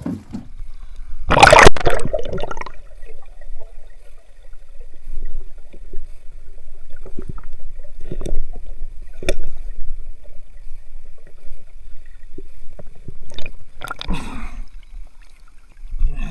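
Water sloshing and gurgling around a small fishing boat, with a loud splash about a second and a half in and a few sharp knocks later on.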